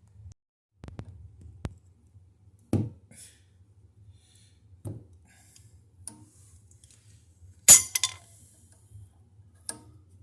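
A few scattered knocks and clinks of hard objects being handled, the loudest a sharp clink about eight seconds in, over a faint low hum.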